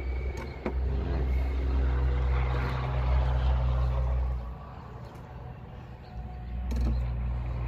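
Low steady drone of a motor vehicle engine running, dipping for about two seconds past the middle before coming back up. A single sharp click sounds under a second in.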